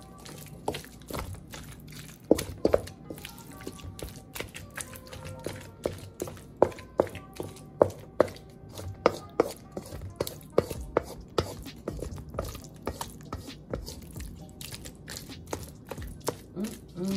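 A wooden spoon stirring a thick cream-cheese stuffing in a stainless steel mixing bowl, knocking and scraping against the bowl at an irregular pace of about one or two knocks a second. Music plays softly underneath.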